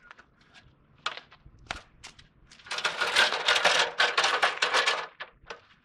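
A string of plastic light bulbs rattling and clicking as it is handled and gathered up: a few separate clicks, then about two seconds of rapid clattering near the middle.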